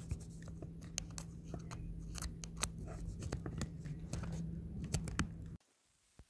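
Close handling noise from hands working right by the recording phone: a string of sharp clicks and small knocks over a steady low hum. About five and a half seconds in, all sound cuts off abruptly to near silence.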